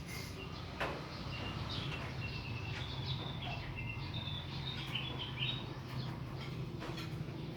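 Small birds chirping and twittering in a quick run of high notes, over a steady low hum.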